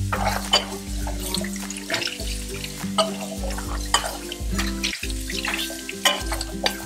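Tap water running over a stainless steel bowl as it is rinsed by hand, with a few sharp clinks of the metal, under steady background music.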